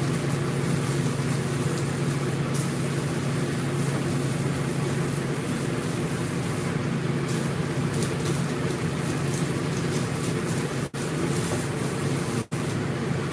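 A machine's electric motor running steadily, with a strong low hum and a hiss over it. It drops out twice for an instant near the end.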